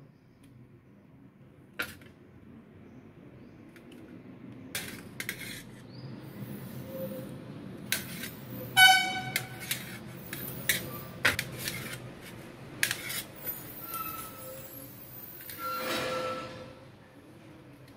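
A kitchen knife slicing button mushrooms, with sharp clicks and taps as the blade meets the stainless steel tray and bowl. A short horn-like toot about nine seconds in is the loudest sound, over a steady low hum.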